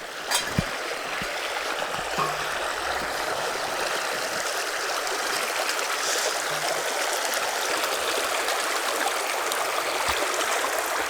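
Steady rush of running water, growing louder in the first second, with a couple of short knocks about half a second in.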